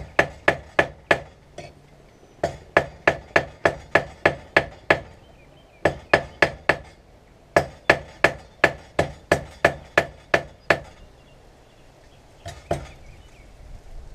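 Hand hammer striking hot 1095 high-carbon steel over a drift pin to curve a small gouge. The blows come in runs of quick ringing strikes, about three a second, with short pauses between runs. Two lighter strikes come near the end.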